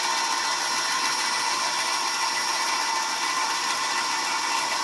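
Bandsaw with a new half-inch, 4-tooth skip blade running steadily as it rips lengthwise through a dried poplar rung blank under slow, even feed.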